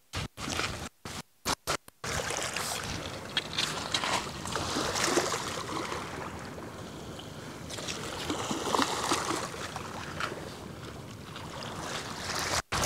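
Wind on the microphone and small waves washing over shingle, an irregular steady rush; the sound cuts out briefly several times in the first two seconds.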